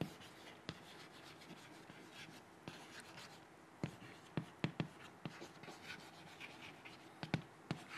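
Chalk tapping and scratching on a chalkboard as words are written: faint, irregular clicks, busiest in the middle and again near the end.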